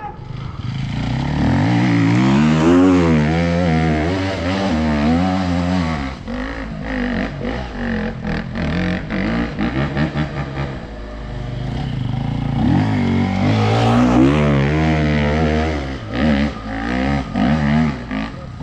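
Enduro dirt-bike engine working hard on a steep hill climb, its revs rising and falling as the throttle is worked, with a choppier, broken-up stretch in the middle before it revs up hard again.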